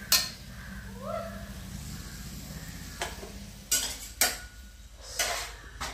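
Steel spoon stirring and scraping thick prawn masala in a metal kadai, with a soft sizzle from the pan. A few sharp clinks of spoon on metal in the second half.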